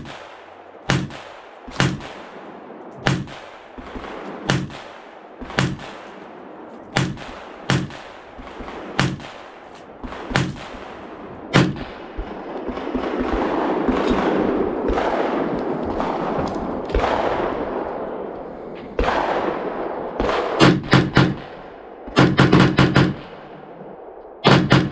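Rifle shots at a shooting range, at first about one a second and evenly paced. A louder rushing swell of sound rises and fades in the middle. Near the end come quick strings of several shots close together.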